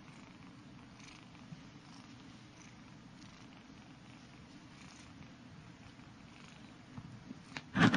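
Kitten purring steadily and low. A sudden loud knock comes near the end.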